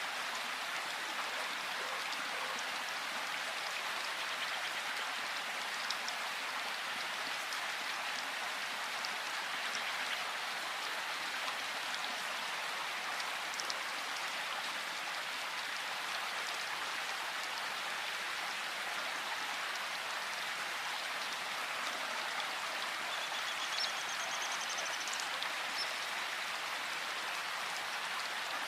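Steady rain falling through forest, a constant hiss dotted with individual drop ticks. Near the end a bird gives a brief high-pitched trill over the rain.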